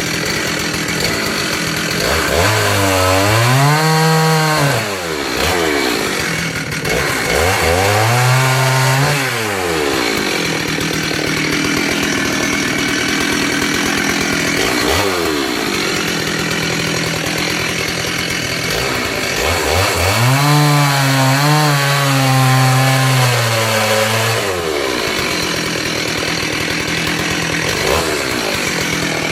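Stihl 038 AV Super 61cc two-stroke chainsaw running at full throttle and cutting through logs: the engine pitch drops under load during three cuts, about two seconds in, about seven seconds in and about twenty seconds in, and rises again between them. The saw is cutting easily on a brand-new chain.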